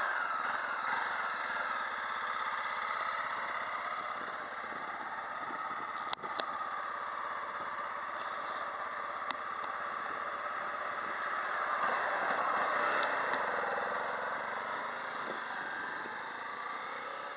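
Road traffic going by on a street: a steady noise of engines and tyres that swells as one vehicle passes right at the start and another passes about twelve seconds in, its pitch falling as it goes by. Two short sharp clicks come near the middle.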